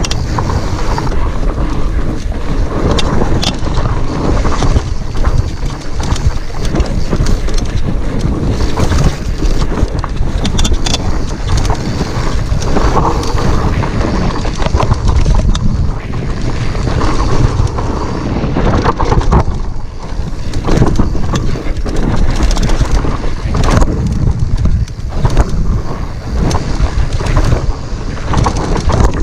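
Wind buffeting the camera microphone on a fast fat-bike descent of a dirt singletrack, a heavy continuous rumble, with frequent short knocks and rattles as the bike hits bumps in the trail.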